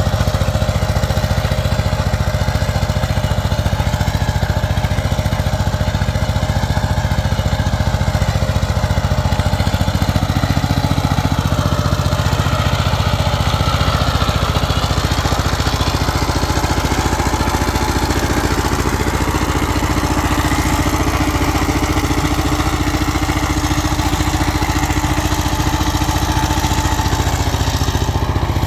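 Two-wheel power tiller's single-cylinder diesel engine running steadily under load with a fast, even beat as it pulls its rotary cultivator through the soil.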